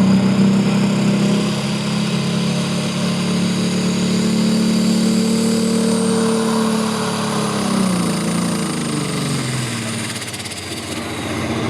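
Diesel pro stock pulling tractor running hard under load as it pulls the sled. About eight seconds in its engine note drops in pitch as it winds down at the end of the run.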